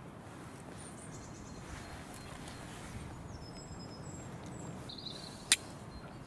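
Wild birds chirping a few times over a steady outdoor background, with one sharp click about five and a half seconds in from the steel, flint and tinder tin being handled.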